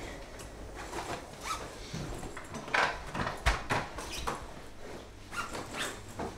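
Food and containers being handled in an open refrigerator: rustling and scraping with a few sharper knocks about three seconds in.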